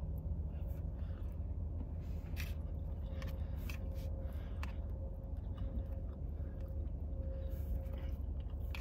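A person eating: a fork scraping and tapping on a paper plate of rice, with chewing, over a steady low hum.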